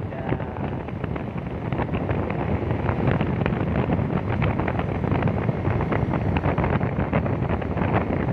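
Wind buffeting the microphone on a moving Vespa scooter, a dense crackling rush, with the scooter's road and engine noise beneath.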